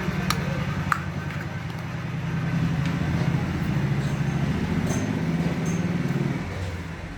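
A motor vehicle's engine running steadily, dropping away about six and a half seconds in. Two small clicks come in the first second.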